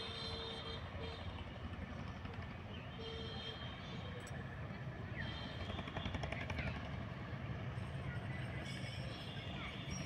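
Outdoor ambience: a steady low rumble, with a few short high chirps and a brief held tone near the start.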